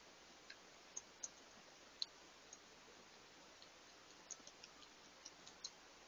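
Faint, irregular small wet clicks of a groundhog lapping water from a shallow bird bath, over a faint steady hiss; the sharpest click comes about two seconds in.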